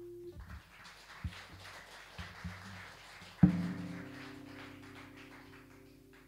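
Acoustic guitar closing a song: a scratchy stretch of light strumming, then a final chord struck about three and a half seconds in that rings out, fades and is damped just before the end.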